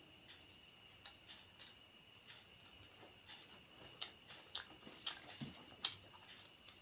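Quiet eating sounds by hand: a few soft clicks and crackles, about four of them between the middle and near the end, as fingers pick at rice on a plastic tray and lift a kerupuk cracker. A steady faint high-pitched tone sits underneath.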